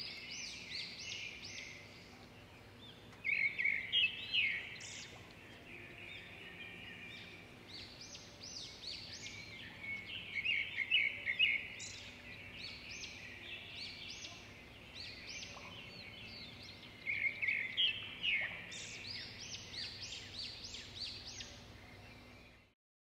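Many small birds chirping and twittering at once, in rapid high chirps, with louder flurries about three seconds in, around ten seconds and around seventeen seconds; the sound cuts off suddenly near the end.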